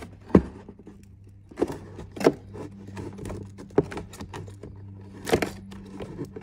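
Stiff plastic clicking and cracking as the inner air-door ducting is pried and pulled away from a motorcycle lower fairing, the industrial double-sided foam tape holding it letting go. About five sharp cracks stand out among smaller clicks, over a steady low hum.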